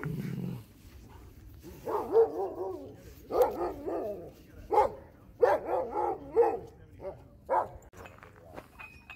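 Sled dogs whining and barking in short runs of pitched, wavering calls, about one run a second.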